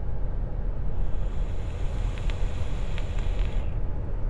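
Draw on a Simurg RDTA vape atomizer: a soft airy hiss of air pulled through its airflow, starting about a second in and fading near the end, with a couple of faint clicks. Under it, the steady low road rumble of the moving car.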